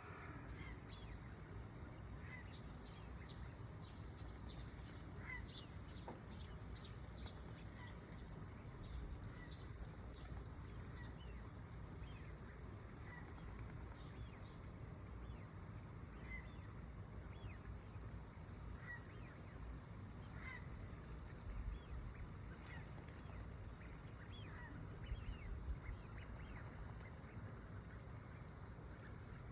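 Birds calling across a lagoon: many short, scattered calls and chirps throughout, over a steady low rumble.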